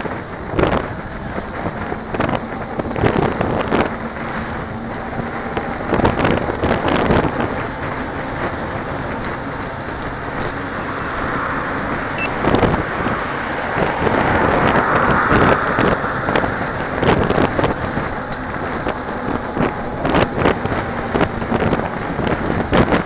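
Wind rushing over the microphone of a camera riding on a moving electric unicycle, with tyre noise from the wheel rolling on pavement and repeated short knocks as it goes over bumps and joints. A passing car swells the noise a little past the middle.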